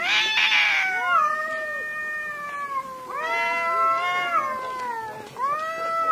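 Two cats in a face-off: a harsh hiss in the first second, then long, wavering yowls that rise and fall, call after call. This is the drawn-out caterwauling of a threat display between rival cats.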